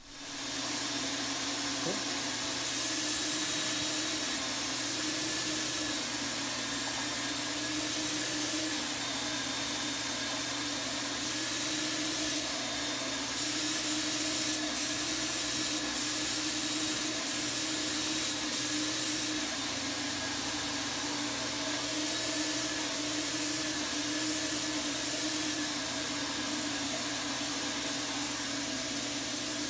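Apollo Precision 5 five-stage HVLP turbine running with a steady hum, while the 7700 spray gun hisses as it sprays paint. The hiss swells and eases by turns.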